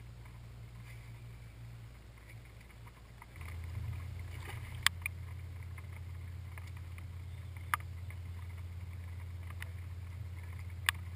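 Bow-mounted electric trolling motor humming low and steady, stepping up louder about three and a half seconds in as the boat is driven forward. A few sharp knocks come through over it.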